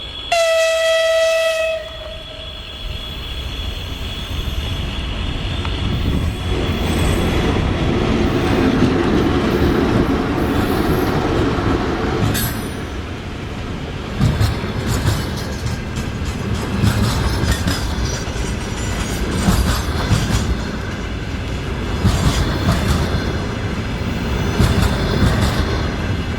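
A VL10 electric locomotive's horn sounds one steady blast of about a second and a half. Then its train passes, the running noise building and wheels clicking over the rail joints.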